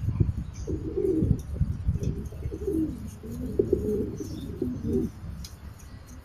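Domestic pigeons cooing, a run of repeated low coos, over a low rumbling noise on the microphone that fades near the end.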